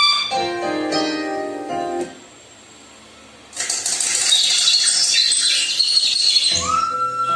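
Instrumental music playing in short pieces. A held note gives way to a chord of several notes, then a pause of about a second and a half. A bright, hissy passage follows, and a new held note starts near the end.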